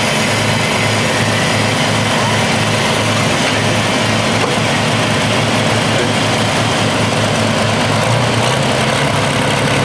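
John Deere pro stock pulling tractor's turbocharged diesel engine running loud and steady, stepping up in pitch about eight seconds in.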